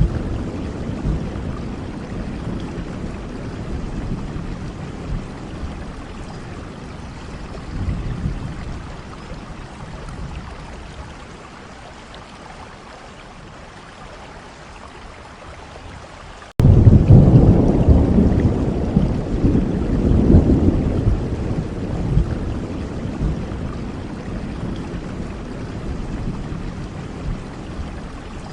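Steady rain with rolling thunder. A low rumble fades away over the first half, then a new loud roll of thunder starts suddenly just past halfway and slowly dies down.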